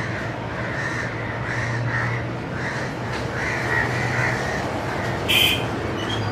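Crows cawing repeatedly over a steady low hum, with a brief sharp hiss about five seconds in.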